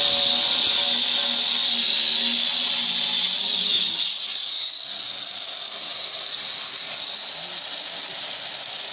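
Handheld angle grinder cutting a granite countertop, a steady high whine. About four seconds in it turns suddenly quieter and duller.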